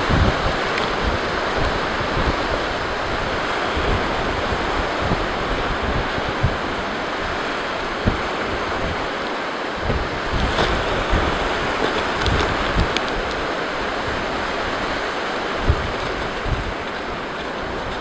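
Blizzard wind blowing hard and steadily, with gusts buffeting the microphone in repeated low thumps.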